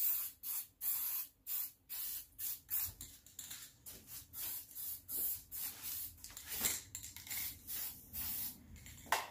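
Aerosol can of lacquer spraying in short, quick bursts, two or three a second at first and more spaced later, as a final coat of lacquer goes onto a wooden chair spindle.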